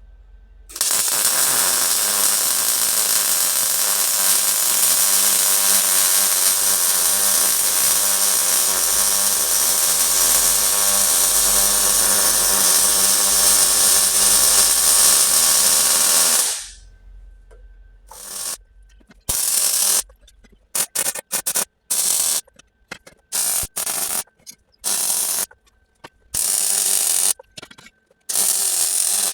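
A handheld power tool working steel runs without a break for about sixteen seconds, then in a string of short bursts with pauses between.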